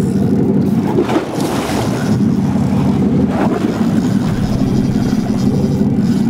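Fishing boat's engine running steadily at sea.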